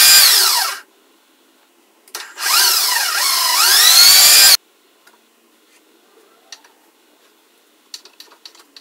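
Power drill run in two bursts, a short one at the start and a longer one of about two and a half seconds, its motor whine rising and falling as the trigger is worked, while assembling plywood drawers. Near the end, a quick run of light clicks as a screw is turned by hand into the drawer slide.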